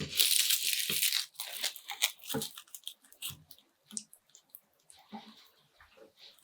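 Close-miked eating sounds: a dense burst of crunching and crackling over the first two seconds, then softer scattered clicks and small wet chewing sounds.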